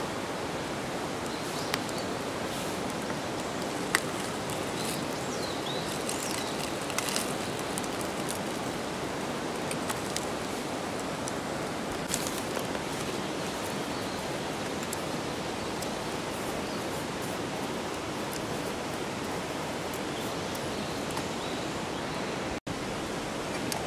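Steady, even rush of water noise outdoors, with a few sharp ticks scattered through it; it drops out for an instant near the end.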